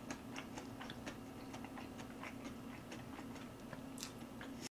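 Close-miked chewing: small wet mouth clicks, about five or six a second, over a steady low electrical hum.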